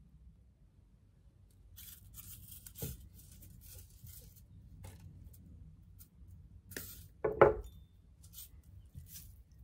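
Handling of fine jewellery wire and tools on a tabletop: crackly rustles and small taps as wire is drawn off a spool. A knock comes about three seconds in and a louder one about seven and a half seconds in.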